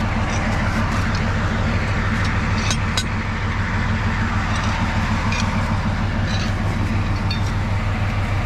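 TU7A narrow-gauge diesel locomotive's engine idling steadily with an even low pulse. A few short sharp clicks about three seconds in.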